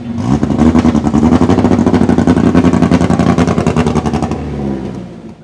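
Mini pulling truck's engine running hard at high revs, loud and steady, then fading away over the last second or so.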